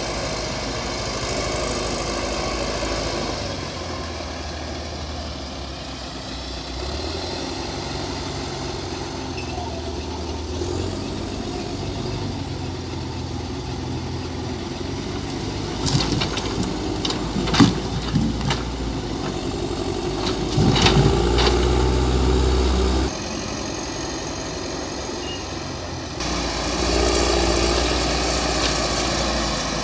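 Caterpillar 950 wheel loader's diesel engine running as it works a log grapple, getting louder under load in a couple of stretches, with a few sharp knocks of logs about halfway through.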